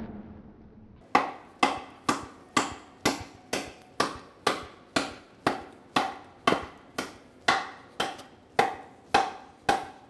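Goodman Combat Knife blade chopping into a wooden 2x4, about two blows a second in a steady rhythm. The blows start about a second in.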